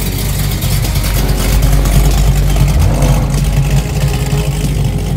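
Late-1960s Ford Mustang fastback's engine revving as the car pulls away, loud, with the pitch rising about three seconds in.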